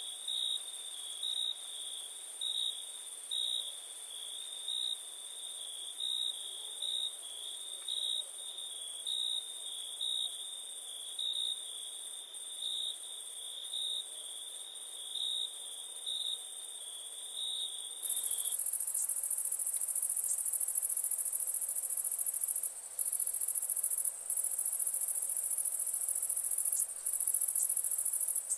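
Night insects: a cricket chirping in short high pulses about once a second over a steady, higher-pitched insect trill. About 18 s in the pulsed chirping stops and a louder, continuous high-pitched insect buzz takes over, broken by a few brief gaps.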